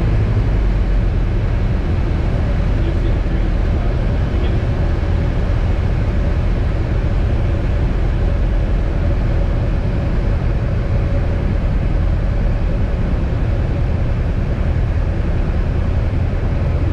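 Piper Cherokee 140's four-cylinder Lycoming engine and propeller droning steadily in flight, heard from inside the cabin.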